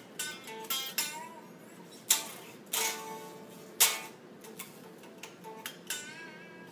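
Electric guitar, a Fender Telecaster with Rio Grande Muy Grande pickups, played through the Rawk OD overdrive pedal into an Orange OR50 amp: a loose run of short picked notes and chords with gaps between, each ringing briefly. The tone is very transparent and harmonically rich.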